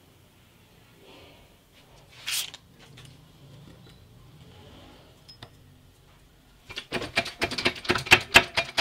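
Rapid sharp metallic taps, roughly ten a second for about two seconds near the end, as a new sealed ball bearing is driven onto the electric motor's armature shaft against a wooden block. A brief louder handling noise comes about two seconds in.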